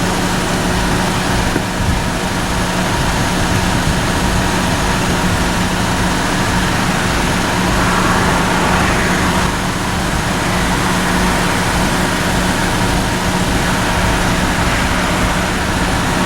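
Steady road and engine noise of a car driving along a highway, with a constant low drone under it.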